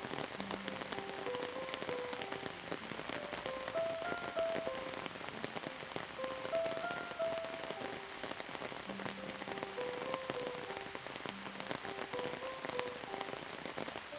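Steady rain with many small drop ticks, under a slow melody of single notes and occasional held low notes.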